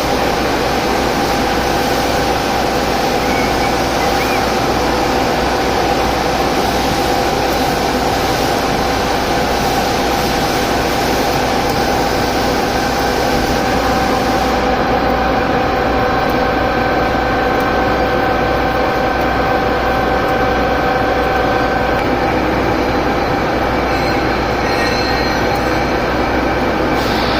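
TOS milling machine under Fanuc 0-M CNC control running steadily, a constant mechanical noise with a steady whine; the high hiss in it thins out about halfway through.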